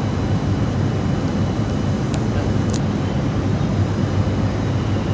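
Steady low rumble of distant city traffic heard from high up a tower, with a couple of faint high ticks a little past two seconds in.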